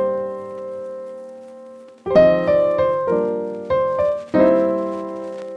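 Background music: piano or electric-piano chords ringing out and fading, then a new run of struck chords from about two seconds in.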